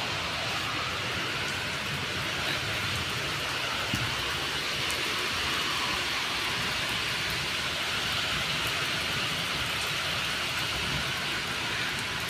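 Steady rain falling, an even hiss with one soft knock about four seconds in.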